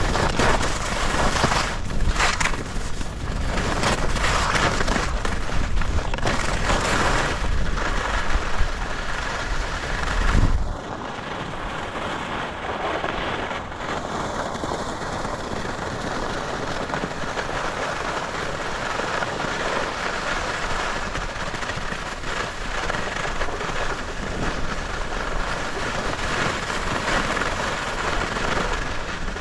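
Wind buffeting the microphone with skis scraping and chattering over snow during a downhill run. There is a heavy rumble and crackle for about the first ten seconds, then it drops to a lighter, steady rushing hiss.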